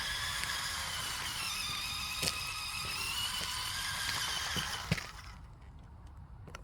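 Small electric motor and plastic gearbox of a JJRC C8815 Willys Jeep RC car whining as it drives over rough ground, the pitch sagging and rising with speed, with a couple of sharp knocks from the chassis. The whine cuts off about five seconds in.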